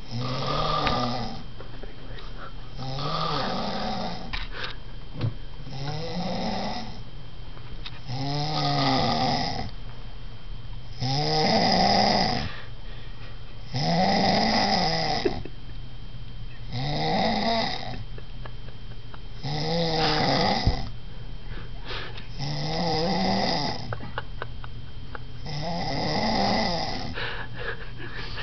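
A person snoring in a steady rhythm, about ten snores roughly every three seconds. Each snore lasts a little over a second and bends up then down in pitch.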